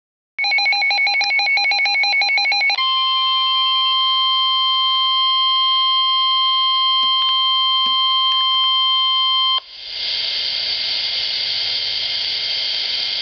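Emergency alert tones: a rapid pulsing electronic beep pattern for about two and a half seconds, then the steady 1050 Hz NOAA Weather Radio warning alarm tone held for about seven seconds, signalling an incoming National Weather Service warning. The tone cuts off abruptly and is followed by a steady radio hiss.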